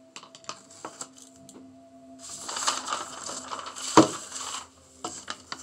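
A sheet of paper being handled and shifted over the painting: light scattered clicks, then a stretch of paper rustling with one sharp knock about four seconds in.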